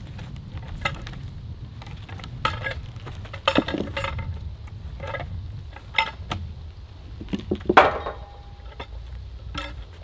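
Sharp metal clinks and knocks as a peavey's hook bites into a log and turns it on the ground, over a steady low rumble. The loudest clank comes about three-quarters of the way in and rings briefly.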